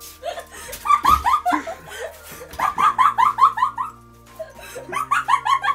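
Stifled giggling in three quick bouts of rapid 'heh-heh' bursts, about a second in, around three seconds in and near the end, with faint music underneath.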